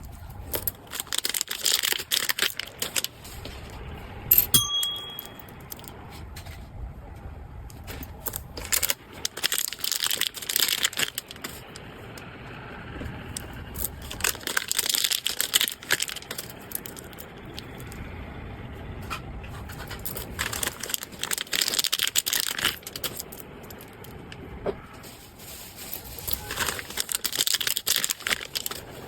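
Packaging being handled in repeated bursts of rustling and crinkling, with one short ringing clink about four and a half seconds in.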